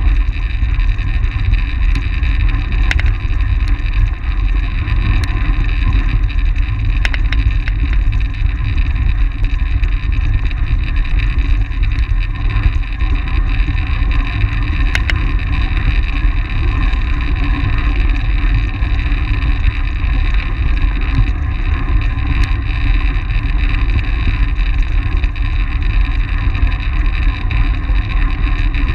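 Steady rush of wind over a bike-mounted action camera's microphone at racing speed on a track bike, with the hum of the tyres and drivetrain underneath. A few sharp ticks stand out, the clearest about fifteen seconds in.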